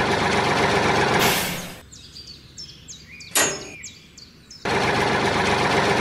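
A tractor engine runs steadily, then drops out about two seconds in after a whoosh. Birds chirp in the gap, another whoosh comes about three and a half seconds in, and the engine sound cuts back in abruptly near the end.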